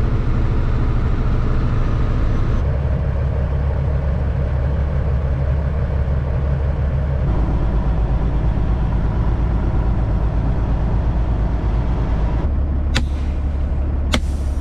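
Kenworth semi truck's diesel engine running steadily, heard from inside the cab, its low note shifting abruptly a few times. Near the end come two short, sharp sounds as the yellow air-brake knob on the dash is worked to set the parking brake.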